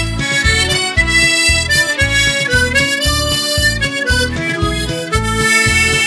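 Harmonica in the key of A playing a slow, sustained melody over an accompaniment with a steady low bass beat, about two beats a second.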